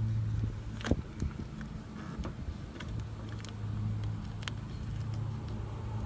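A steady low hum that swells and fades slightly, with a few sharp clicks and taps from hands at work, the loudest about a second in.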